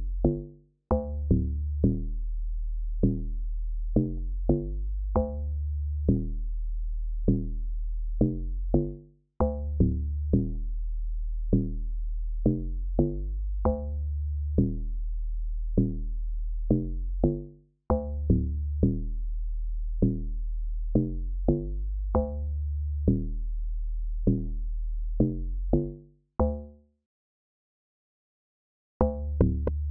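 Amapiano beat playing back in a loop: a deep, steady bass under short, evenly repeating pitched drum hits. It stops for a couple of seconds near the end and starts again.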